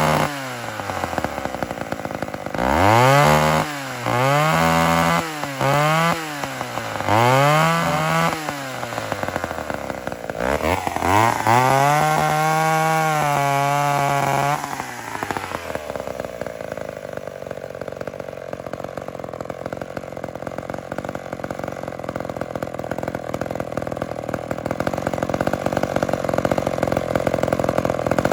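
McCulloch Mac 10-10 vintage two-stroke chainsaw revved in several short blips, then held at high revs for a few seconds before dropping, then running steadily at a lower, even pitch. The owner takes its weak, poorly running performance for an ignition fault, such as the coil or points, causing a miss.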